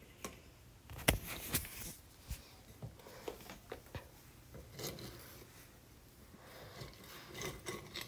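Hands rummaging through a box of collected nature objects such as acorns, sticks and leaves, with irregular rubbing, scraping and small knocks. The noise is busiest in the first half, dies down briefly, then picks up again near the end.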